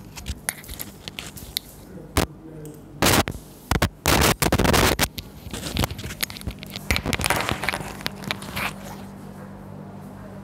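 Irregular scraping, rustling and sharp knocks, loudest in a cluster between about three and five seconds in, over a steady low electrical hum.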